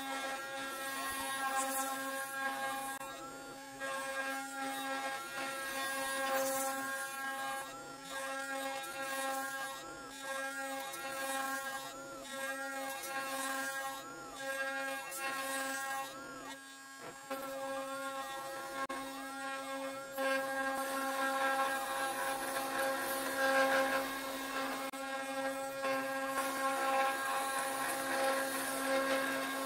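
CNC router spindle running with a steady whine as its end mill cuts into a yew log, the pitch wavering over and over as the cutter bites the wood. The sound breaks off briefly a little past halfway, then carries on.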